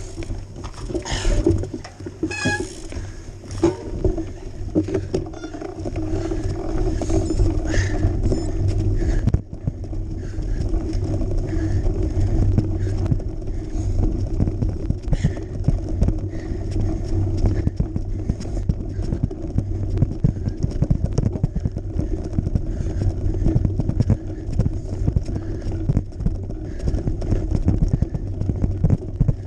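Riding noise from an action camera mounted on a cyclocross bike: wind rumbling on the microphone and the bike rattling and jolting over a rough, snowy, muddy track.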